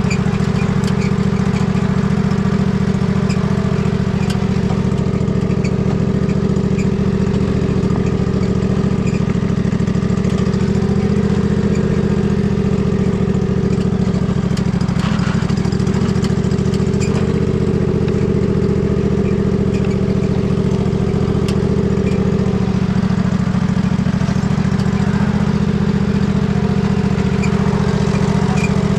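Husqvarna riding lawn mower's engine running at a steady speed while the mower is driven along a trail.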